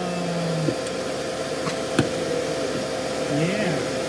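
Steady blower-like hum with a faint steady tone, broken by two light knocks about two seconds in.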